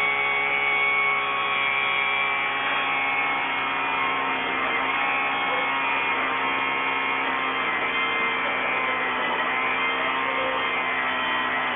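A motor running steadily, making a sustained whine of several steady tones with no change in speed.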